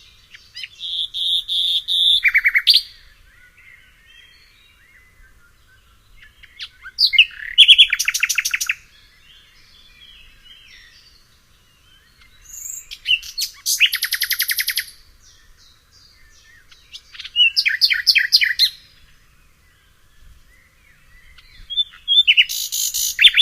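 A songbird singing five loud phrases about five seconds apart, each a run of quick whistled notes ending in a rapid trill. Fainter calls from other birds come in between.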